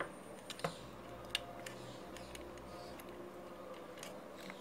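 Faint scattered clicks and ticks, about half a dozen, from fingers handling a small antenna booster circuit board and its coax cable, over a low steady hum.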